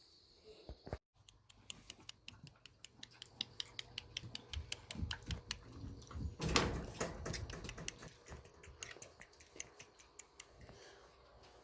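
Light, irregular clicks and ticks, several a second, with a louder rustling noise about six and a half seconds in.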